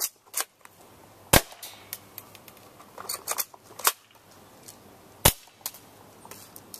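Airsoft HK MP5 replica firing single shots: a series of sharp cracks spaced one to two and a half seconds apart, the loudest about a second and a half in, near four seconds and just past five, with fainter clicks between.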